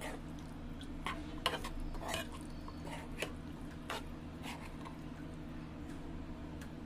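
A spatula stirring and scooping thick chickpea curry in a nonstick pan: a few scattered scrapes and taps against the pan, mostly in the first four seconds, over a steady low hum.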